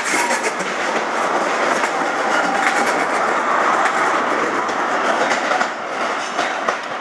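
Train passing close by at low speed, its wheels clicking and rattling over rail joints with a steady rumble of rolling stock, easing off near the end.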